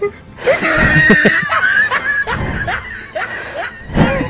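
People laughing: short broken snickers and giggles, loudest in the first couple of seconds and again near the end.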